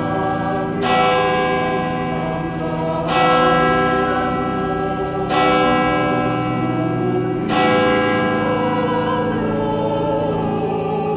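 A church bell tolling slowly, four strikes about two seconds apart, each ringing on, over a steady choir backing that begins to move more near the end.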